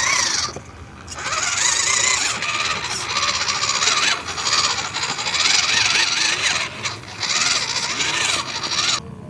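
Electric motor and gears of a radio-controlled truck whining under throttle, in uneven bursts that rise and fall in pitch, with a hiss over them. It cuts off shortly before the end.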